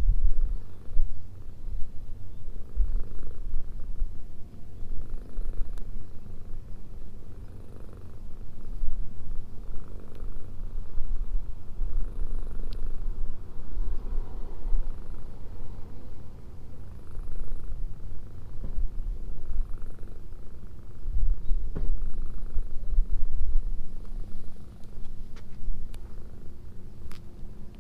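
Domestic cat purring steadily close up while being stroked, a sign that it is content.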